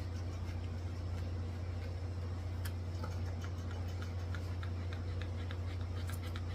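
Grooming scissors snipping the hair between a dog's toes: a string of small, irregular clicks, more frequent toward the end, over a steady low hum.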